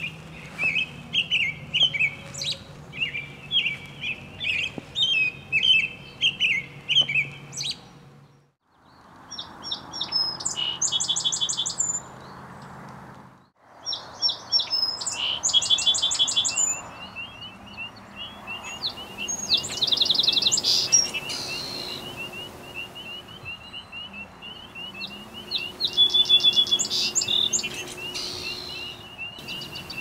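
Field recording of songbirds singing: repeated chirped phrases and fast high trills. The sound breaks off briefly twice, about eight and thirteen seconds in, where recordings are joined.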